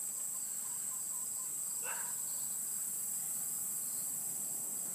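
Steady, high-pitched chorus of insects in summer grass, with one brief call about two seconds in.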